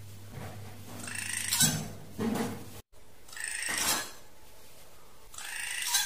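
Drongo calling: about four loud calls in a row, roughly a second apart, each a rough, many-toned note strongest in the upper-middle range. The track drops out for an instant just before the third call.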